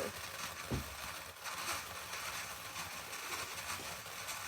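Fountain firework spraying sparks with a steady hiss, and one soft low thump about a second in.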